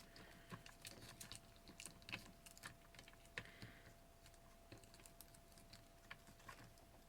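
Faint, scattered small clicks and a brief rustle of hands handling paper-crafting materials, under a faint steady hum.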